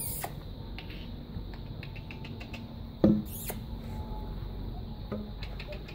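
Five-week-old puppies squeaking and yipping faintly as they play, with one short, louder yip about three seconds in.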